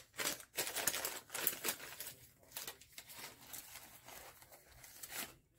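Shower steamer advent calendar packaging crinkling and rustling as it is handled and opened. The crackling is irregular and busiest in the first couple of seconds, then softer.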